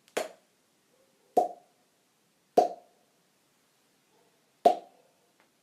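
Hollow mouth pops made by a hand working against lips shaped in an O, the 'Poki Poki' body-percussion face sound. Four separate pops, unevenly spaced, each with a short pitched ring.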